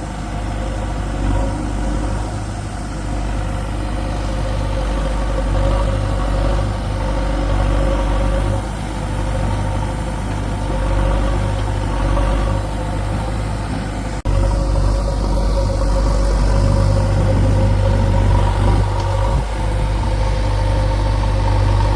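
Heavy diesel engines running steadily as a JCB 3DX backhoe loader works loading mud into a tractor trolley. The sound jumps abruptly louder about two-thirds of the way through.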